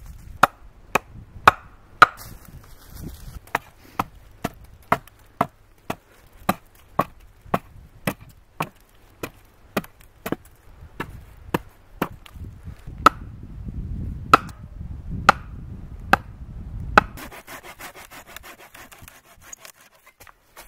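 Hatchet chopping dead wood in steady strokes, about two a second, cutting branches off a fallen log. The chopping stops about three seconds before the end and gives way to a few seconds of rustling.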